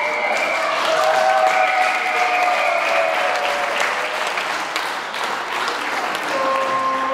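A crowd of volleyball supporters applauding and cheering, with dense steady clapping and a few long held notes over it in the first few seconds and again near the end.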